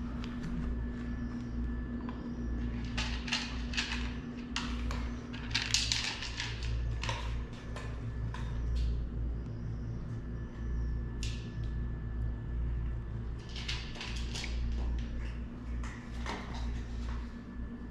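A cat chewing dry food: intermittent clusters of small sharp crunches, over a steady low hum.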